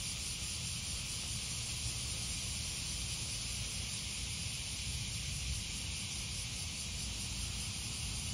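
Outdoor ambience on open grass: a steady hiss with an uneven low rumble underneath.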